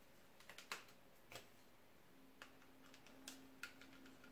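Faint, scattered small clicks and ticks of a screwdriver working the battery screws out of a laptop's metal-and-plastic chassis, several in all with the loudest a little under a second in. A faint steady low hum comes in about halfway through.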